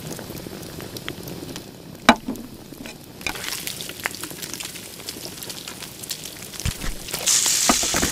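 Food frying in hot oil: a steady sizzle with scattered crackles and a sharp click about two seconds in, the sizzle growing louder and brighter near the end.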